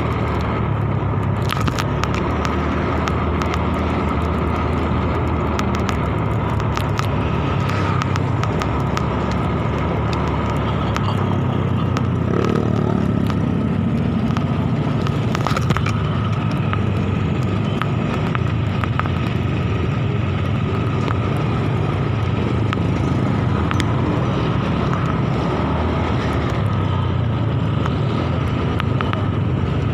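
Motorcycle engine running with road noise while riding in town traffic. The engine note rises briefly about twelve seconds in.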